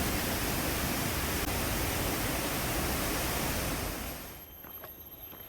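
Steady rushing noise spread evenly from low to very high pitches, which drops off suddenly about four seconds in, leaving a much quieter outdoor background with a few faint ticks.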